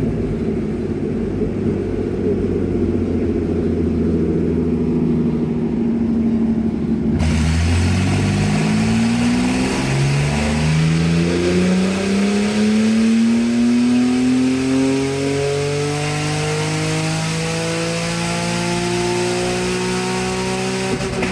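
Naturally aspirated Nissan RB26 straight-six, run without its turbos on a chassis dyno. It runs steadily for about seven seconds, then pulls at full throttle, its pitch climbing steadily toward redline for the rest. Very loud.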